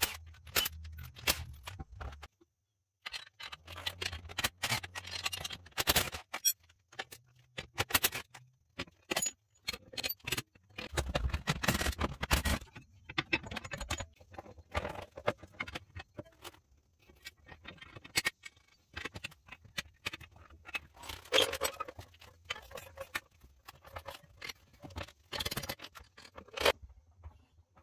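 Cordless impact wrench running on a car wheel's lug nuts in two bursts early on, followed by repeated metallic clinks, clanks and scraping of tools and parts.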